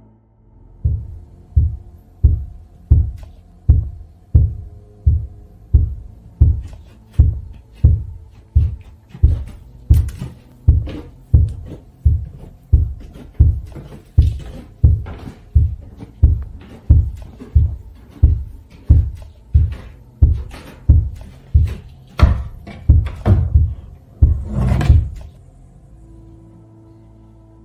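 Heavy low thumps repeating steadily, about one and a half a second, over a faint steady hum; the last few come louder and rougher, and then the thumping stops abruptly near the end.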